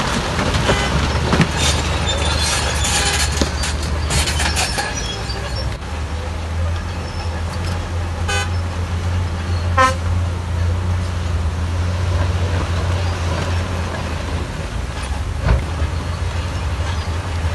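Heavy diesel engines of a bulldozer and dump trucks running steadily at a low hum, with clattering over the first few seconds. A vehicle horn gives two short toots, about a second and a half apart, a little past the middle.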